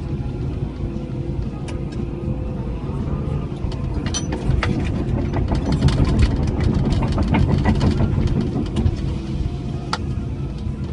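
Cat 312E L excavator's diesel engine running under hydraulic load, heard from inside the cab. For several seconds in the middle, dense clattering and knocks rise over it and make this the loudest part.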